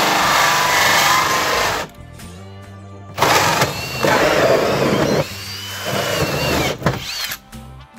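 Cordless drill spinning a hole saw through vinyl siding, cutting in stops and starts: a long run of about two seconds, a pause, another run of about two seconds, then shorter bursts.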